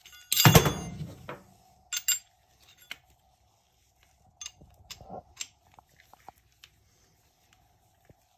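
Metal hand tools clinking and clattering as locking pliers and an open-end wrench are handled on the threaded nipple of a dental handpiece drive cable. A loud clatter comes about half a second in, then scattered light metal clicks, over a faint steady hum.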